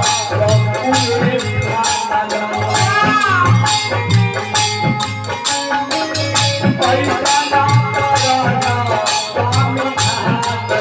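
Live stage song through a PA: a singer's voice over a quick, steady beat of rattling percussion with low drum thumps underneath.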